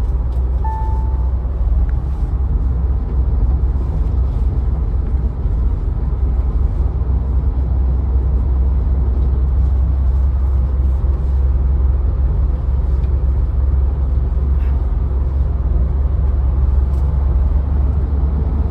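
Mahindra Thar on the move: a loud, steady, deep rumble of engine and road noise. A brief high beep sounds about a second in.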